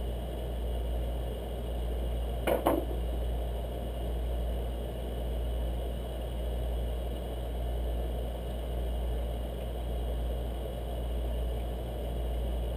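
Hands working a thin steel oil-ring rail onto a Yamaha XS650 piston, with one short click about two and a half seconds in, over a steady low background hum.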